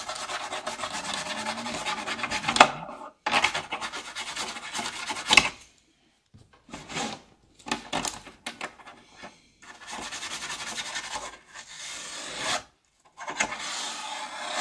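Electric toothbrush buzzing as it scrubs the vent grilles of a vintage Macintosh's beige plastic case, in several stretches of a second to three seconds with short pauses between.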